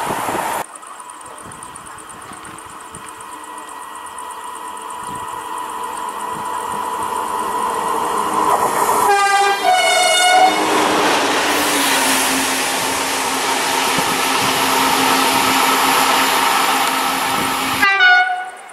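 A train approaching and growing steadily louder, then sounding a two-tone horn, one note followed by a lower one, about nine seconds in. The loud steady running noise of the train passing close follows. A short horn blast comes near the end.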